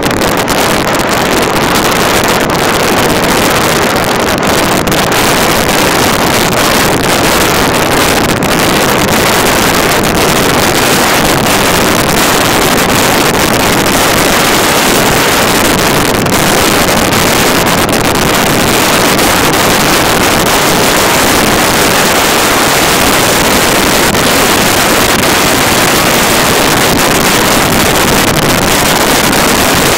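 Motorcycle riding at road speed: a loud, steady rush of wind over the microphone, with engine and road noise blended underneath.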